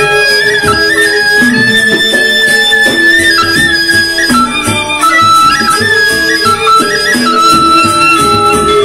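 Sasak gamelan ensemble playing traditional Lombok music. Bronze metallophones and kettle gongs are struck with mallets and a two-headed drum beats, under a high melody that holds long notes and steps between them.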